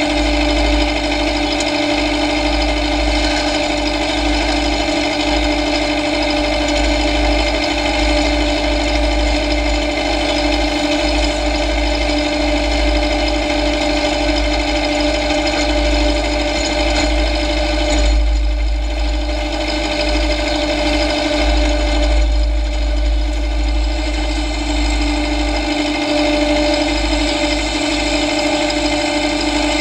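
John Deere tractor engine running at a steady speed while the tractor pushes snow with a blade, with an even hum and a low rumble throughout.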